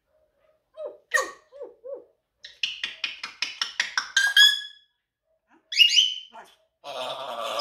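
African grey parrot vocalizing: a few short croaky calls, then a quick run of about eight clicking notes ending in a rising whistle, two more whistles a little later, and a harsh buzzing noise near the end.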